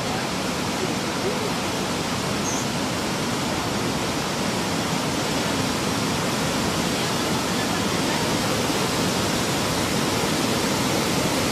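Steady rushing roar of churning surf as a foaming tsunami surge rolls in toward the beach, growing slightly louder toward the end.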